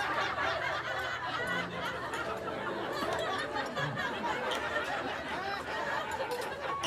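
Many people laughing at once, overlapping chuckles and snickers that go on steadily, with a murmur of voices under them.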